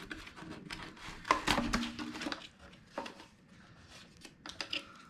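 Unpacking noises: a plastic battery charger and its packaging handled, giving irregular light knocks, clicks and rustles, busiest in the middle.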